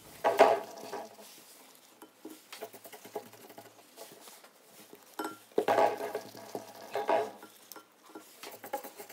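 Dishes clattering and a glass bowl clinking a few times, the loudest just after the start and another cluster around the middle, amid quiet handling as chicken pieces are worked through egg mixture and crumb breading.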